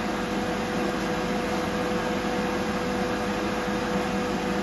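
Steady hum of a fan or small motor, holding one constant tone over an even hiss.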